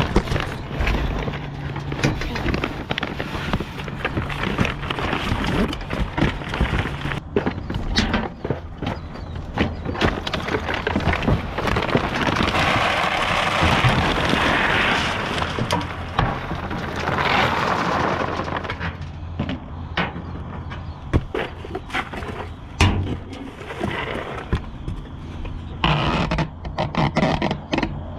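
Cardboard boxes and plastic bags being shoved and rummaged through inside a metal dumpster: irregular knocks, scrapes and clicks, with a longer stretch of loud rustling and crinkling in the middle. A steady low hum runs underneath.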